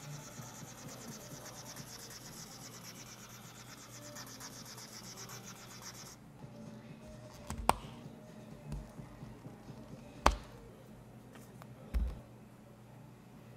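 Plastic drink cup being lidded and handled on a counter: a steady high hiss that stops about six seconds in, then two sharp plastic clicks and a dull knock near the end as the cup is set down.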